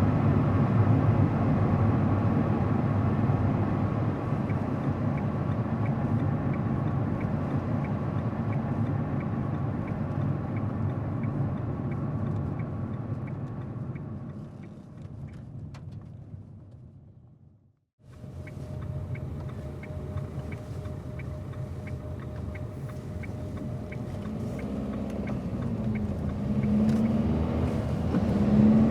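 A car driving along a road: steady low rumble of tyre, road and engine noise. It fades out to silence about two-thirds of the way through, then comes straight back.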